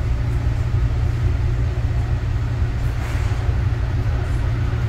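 Interior running noise of a Yongin EverLine light-rail car, a Bombardier ART 200 driven by linear induction motors, travelling along the track: a steady low rumble with a little more hiss about three seconds in.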